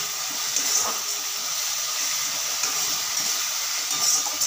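Onion and spice paste sizzling in hot oil in a kadai as it is sautéed down, with a metal spatula stirring and scraping against the pan a few times.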